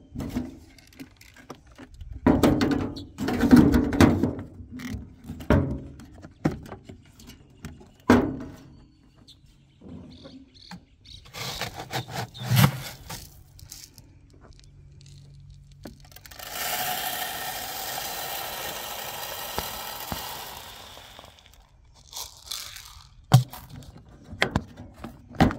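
Hand jab planter (matraca) being handled, with irregular knocks, clacks and scrapes. Past the middle a steady rushing noise runs for about four seconds, then stops.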